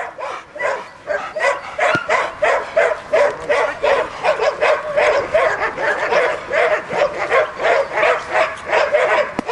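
Belgian Malinois barking continuously in a rapid, even run of about three barks a second.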